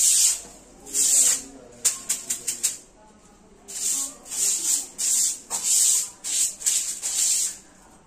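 Short hand-held grass broom swishing across a marble floor in repeated quick strokes, a lull of about a second near three seconds in, then a fast run of strokes.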